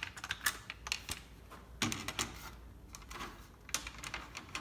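Irregular sharp plastic clicks and knocks as the laminator's top guard cover is handled and fitted back into place.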